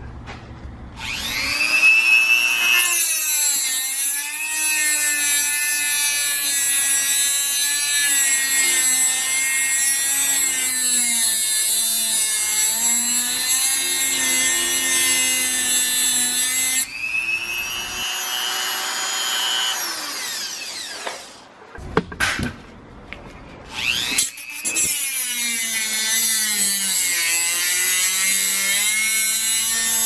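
Rotary tool with a small abrasive cut-off wheel grinding through a steel bolt on a steering column lock: a high-pitched whine that spins up about a second in and dips and rises in pitch as the wheel bites. It stops for a few seconds about two-thirds of the way through, with a few short knocks, then starts cutting again.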